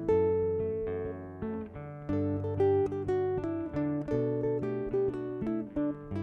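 Acoustic guitar music, notes plucked one after another with several ringing together.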